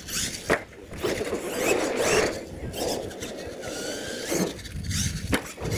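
Radio-controlled monster truck driving on a dirt track: its motor whining up and down with the throttle and its tyres scraping and scrabbling through the dirt. A sharp knock about half a second in, just after the truck goes airborne off a ramp, fits its landing, and another knock comes near the end.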